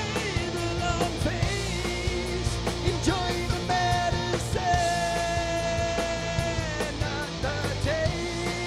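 Groove metal band playing live: drums and electric guitar in an instrumental stretch, with a lead line of long held notes that slide from one pitch to the next.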